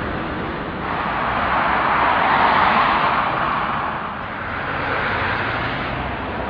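Street traffic: passing cars with tyre and engine noise that swells and fades, peaking twice.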